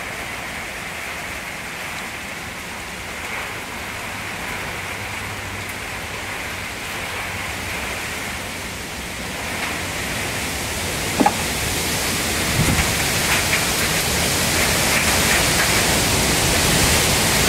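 Heavy thunderstorm rain pouring down, growing steadily heavier and louder, with a sharp knock about eleven seconds in.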